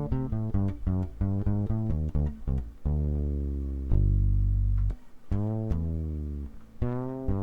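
Ibanez SRH500F fretless bass with tapewound strings and piezo pickups, played unmuted with the tone knob full up: a run of plucked notes, some held long, with notes sliding up in pitch about two thirds of the way through and again near the end.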